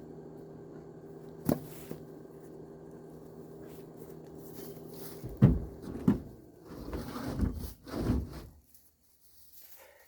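Pieces of dry wood knocking and thudding as they are thrown onto a pickup's load bed: one sharp knock early, then a quick run of loud thuds and knocks in the second half. A steady low hum sits under the first half and stops partway through.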